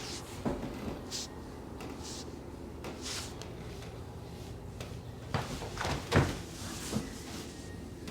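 A few soft knocks and brief rustles, the sounds of a patient being handled and shifting on a chiropractic treatment table, over a steady low room hum.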